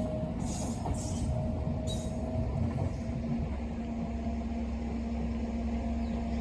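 WAG-9 electric locomotive running light, with no train attached, passing at speed: a steady low rumble with a constant hum over it, and a few brief hissy bursts in the first two seconds.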